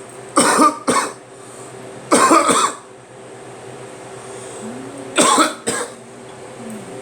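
A person coughing in three harsh bouts: a double cough, a longer single cough about two seconds in, and another double cough about five seconds in. It is a chesty cough that he puts down to pollen congesting his chest.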